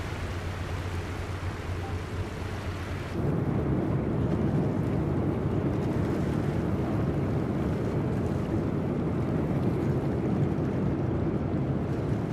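Large ro-ro ferry under way, a steady rumble of engines and water wash. About three seconds in it turns abruptly louder and deeper, as a ferry passes close by.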